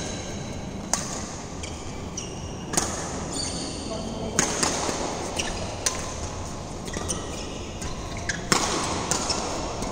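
Badminton rally: sharp racket strikes on the shuttlecock every second or two, with short high squeaks of shoes on the court floor between them, echoing in a large hall.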